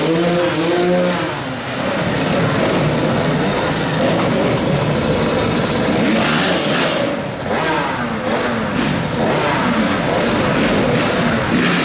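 Motocross dirt bike engines revving, their pitch rising and falling over and over as the bikes are ridden around.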